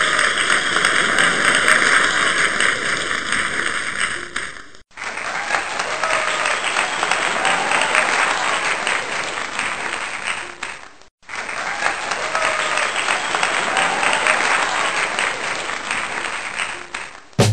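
Crowd applause, a dense steady clapping that breaks off sharply for a moment about five seconds in and again about eleven seconds in, then resumes.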